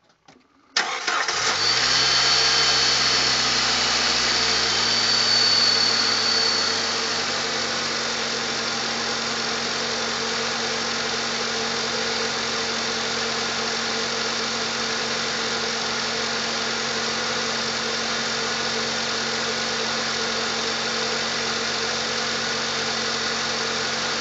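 1997 Jeep Wrangler TJ's 2.5-litre four-cylinder engine starting under a second in. It runs at a raised idle for about six seconds, then settles to a steady idle, with its leaking exhaust manifold gasket newly replaced.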